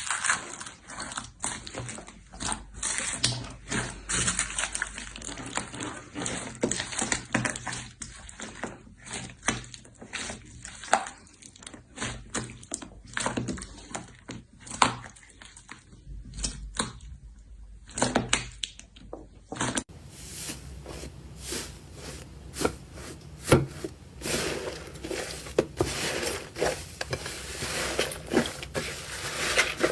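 Slime being squeezed, poked and stretched by hand, giving an irregular run of crackles, clicks and squishy pops. About two-thirds of the way through, a different clip begins with a brighter, denser crackling.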